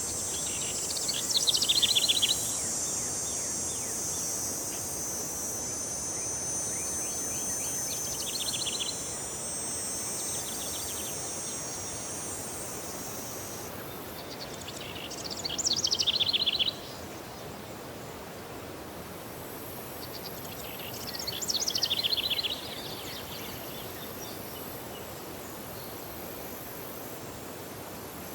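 A songbird sings a short, fast, descending trilled phrase four times, roughly every six seconds. Behind it is a steady, high-pitched insect drone that drops away about halfway through.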